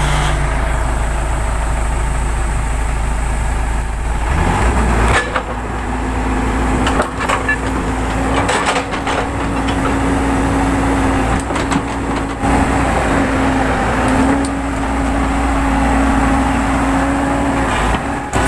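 Hyundai R140LC-9V crawler excavator's diesel engine running steadily as the machine is operated, swinging its upper body and raising the boom and bucket. About four seconds in, a steady whining tone joins the engine and holds until near the end, with a few scattered clanks.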